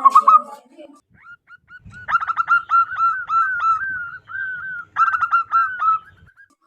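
Zebra dove (perkutut) song, loud and clear: short staccato cooing notes in rapid runs. A tangled burst comes at the start, then a quick run of notes from about two seconds in, a brief break, and another run near the end.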